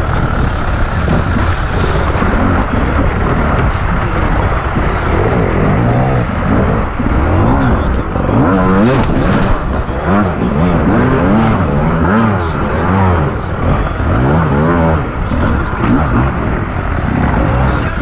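Beta enduro motorcycle engine revving up and down in quick, repeated throttle blips as the bike climbs a steep, muddy slope.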